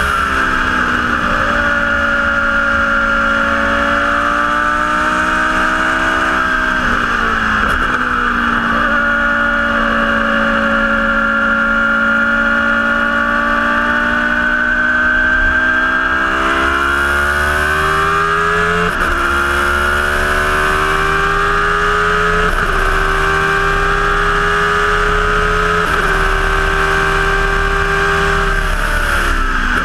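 Formula One car's engine heard onboard at speed: the revs drop sharply just after the start and again around 7–8 seconds, climb slowly through the middle, then rise in steps with upshifts at about 19, 22 and 26 seconds, and fall near the end. Wind noise rushes under the engine throughout.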